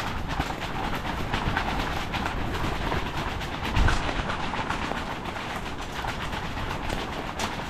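Strong gusting sea wind buffeting the microphone, a dense low rumble with a fast fluttering clatter running through it and a heavier gust hit about four seconds in.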